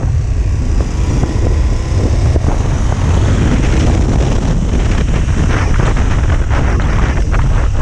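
KTM 1290 Super Adventure's V-twin engine running as the motorcycle rides at road speed, with heavy wind buffeting on the microphone.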